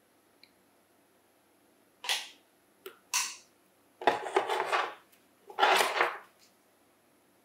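Metal tools and parts handled on a workbench: a few short scraping, clattering noises, the two longest near the middle and about six seconds in.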